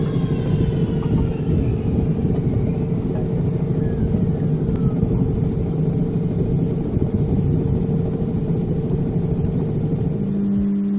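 Small outboard motor running steadily at trolling speed, its steady drone mixed with wind and water noise. Acoustic guitar music comes in near the end.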